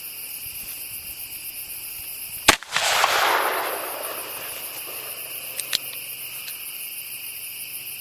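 .357 Magnum revolver fired once about two and a half seconds in, a sharp crack followed by a rolling echo that dies away over about two seconds.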